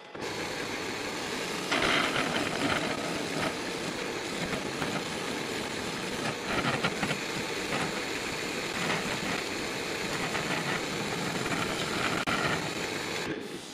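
Wood lathe starting up and running at about 880 rpm with a large ash bowl blank, while a turning tool cuts into the spinning wood in rough, scraping stretches. The cutting comes in about two seconds in and continues until shortly before the end, when the sound drops away.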